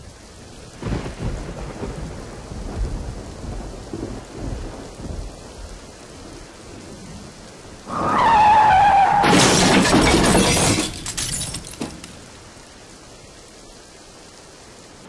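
Steady rain with low rumbles of thunder. About eight seconds in, a loud thunderclap lasts about three seconds, with a falling high tone over its start. Then only the rain remains.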